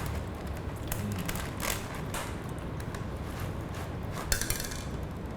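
A few faint, short clicks and knocks over a low steady room hum, the loudest about four seconds in.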